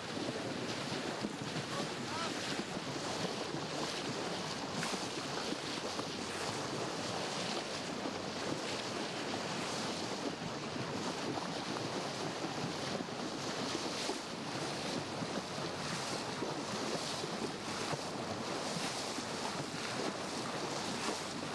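Steady rushing hiss of wind and lake water around a small boat, with small gusts buffeting the microphone.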